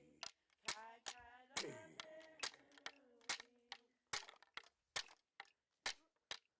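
Singing voices over a steady beat of sharp claps, about two to three a second, for a ceremonial dance. The singing stops about four seconds in and the claps carry on.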